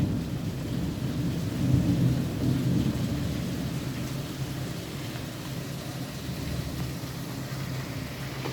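Thunder rumbling and dying away over heavy rain, with a second swell of rumble about two seconds in, then steady rain.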